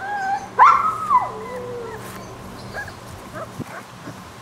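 Alaskan Malamute puppy, about four weeks old, whining: one high cry about half a second in that slides down in pitch and trails off, with a few fainter squeaks after it.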